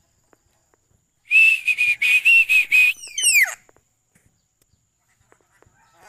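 Black-capped lory calling loudly: a harsh, rapidly pulsed screech starting a little over a second in and lasting about a second and a half, ending in a few quick falling whistles.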